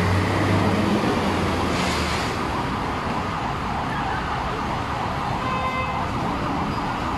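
Road traffic noise with a vehicle engine humming for the first couple of seconds, then an emergency vehicle siren sounding faintly through the traffic from about four seconds in.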